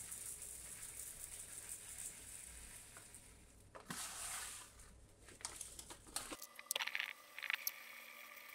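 Uncooked rice grains pouring from a plastic bag into a plastic measuring cup, a steady hiss that fades out about three seconds in. The plastic rice bag crinkles briefly about four seconds in. Near the end come scattered clicks and clinks at a stainless-steel sink as the rice is rinsed in a metal strainer under the tap.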